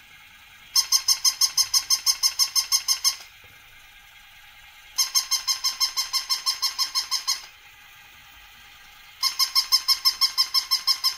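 Battery-operated plush puppy toy making its electronic bark: three bursts of rapid high squeaks, about six a second, each lasting two to three seconds.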